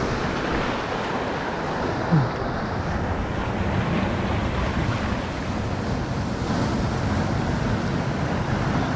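Sea surf washing in over shoreline rocks, a steady rushing wash of water with no breaks.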